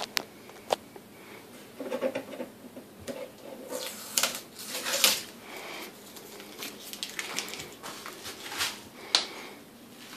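Water trickling and splashing in the rear filter chamber of a JBJ 28-gallon all-in-one aquarium, mixed with irregular clicks and scuffs from the phone being moved around. The loudest splashy burst comes about five seconds in.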